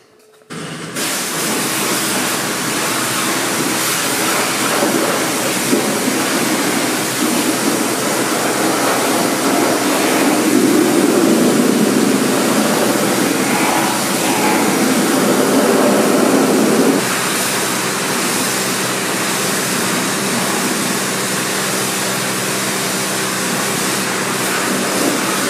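Pressure washer running steadily: a motor hum under the hiss of the water jet spraying a car's bodywork. The spray sound shifts about two-thirds of the way through.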